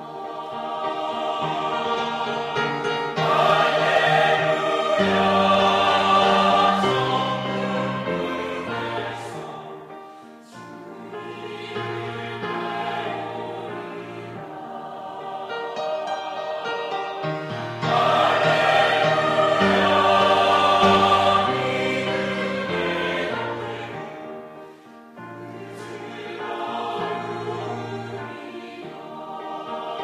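Mixed church choir of men and women singing a sacred anthem in sustained chords, swelling louder twice and easing back between phrases.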